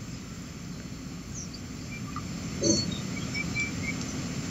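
Quiet background: a low, steady hum with a few faint, short high chirps, and one brief soft sound a little past the middle.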